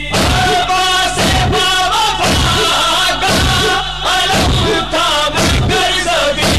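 A man's voice singing a chanted melody over a steady beat of low thumps, about two a second.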